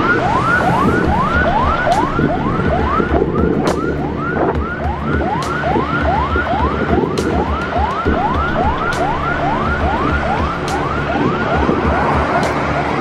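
Police patrol car siren in fast yelp mode: quick rising whoops, about three a second, without a break, over the low rumble of heavy highway traffic.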